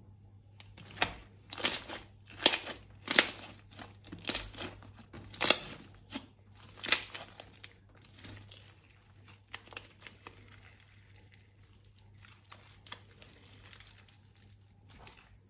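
Crinkling and crunching handling sounds, in a run of sharp crackles about once a second for the first seven seconds, then fainter and sparser.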